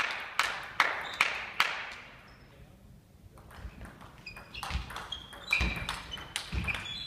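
Table tennis ball bouncing steadily, about two and a half bounces a second, then after a short pause a rally: the celluloid ball clicking off rubber bats and the table, with thuds of footwork and short squeaks of sports shoes on the hall floor. Each click rings on in the reverberant hall.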